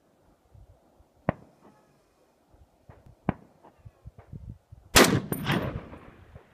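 A GA Precision GAP 10 .308 rifle fires a single shot about five seconds in: a loud sharp report that dies away over about a second. A couple of fainter sharp clicks come before it.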